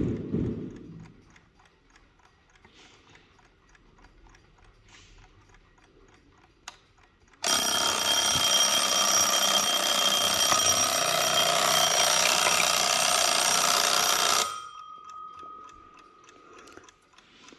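Mechanical alarm of a Junghans antique mantel alarm clock going off: its hammer rattles rapidly against the bell in a loud, continuous ring for about seven seconds, then is shut off abruptly and the bell's tone hangs on faintly. Before the alarm, the clock movement ticks faintly and regularly.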